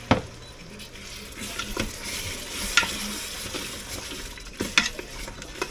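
Thick curry sauce sizzling in a pot as it is stirred, with the spoon knocking sharply against the pot about five times.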